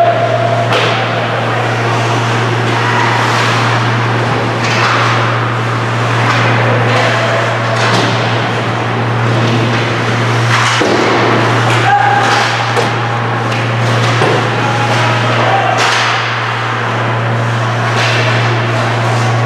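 Ice hockey play on a rink: sharp clacks of sticks on the puck and ice, skate blades scraping, and knocks of the puck and players against the boards, scattered irregularly over a steady low hum.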